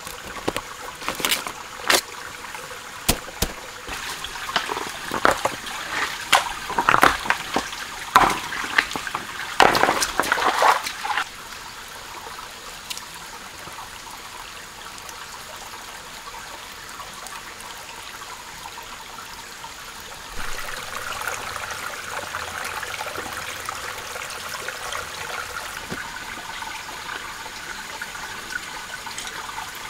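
Forest stream trickling steadily, with a run of sharp clicks and knocks over the first ten seconds or so. The trickle grows louder about two-thirds of the way through.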